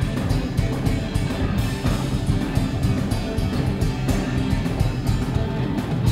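Live rock band playing loud: electric guitar over bass guitar and a drum kit, heard through a smartphone microphone that makes it sound muffled, with a muddy bass.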